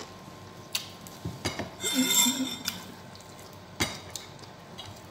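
Close-up eating sounds of a person chewing a mouthful of fried fish and rice, with a crackly, smacking stretch about two seconds in. A few sharp clicks and clinks against the plate are heard, the loudest near the end.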